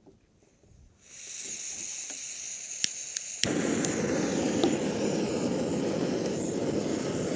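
Camping stove being lit: gas starts hissing from the burner, an igniter clicks about three times, and then the burner catches about three and a half seconds in and burns with a steady rushing flame.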